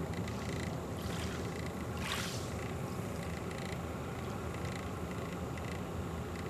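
Small ripples lapping at a shallow shoreline over a steady low rumble, with a soft swish of water about two seconds in and a fainter one about a second in.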